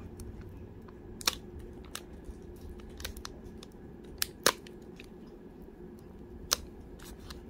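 Scattered sharp clicks and ticks from handling scissors and a foil trading-card pack, the loudest about a second in and again about four and a half seconds in, over a steady low hum.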